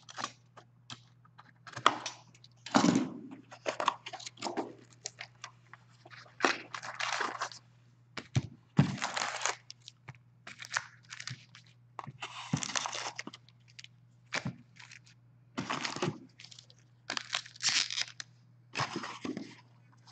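Cardboard hobby box of Upper Deck hockey cards being torn open and its foil packs pulled out, crinkling and set down on a desk in irregular bursts of crackle and clicks.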